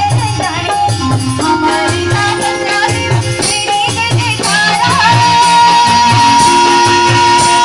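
Uttarakhandi folk dance music with a steady drum beat and jingling rattle percussion under a melody; about five seconds in, a long note is held.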